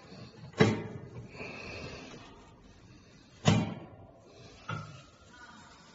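Sharp knocks on the stainless steel hopper and auger screw of a powder filling machine during fitting of the screw: two loud ones about three seconds apart, each ringing briefly, and a lighter one near the end.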